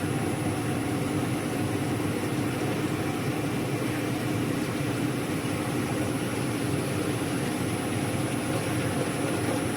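CNC machine running steadily while cutting metal: a constant machine hum with a thin, high-pitched whine above it.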